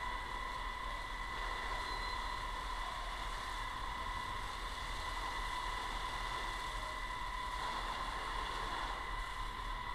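Fire hose jet spraying water, a steady hiss with a steady high whine under it.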